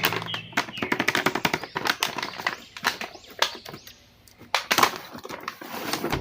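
A rapid, irregular run of sharp clicks and bangs, with a falling swoop about three seconds in and a loud bang just before the end.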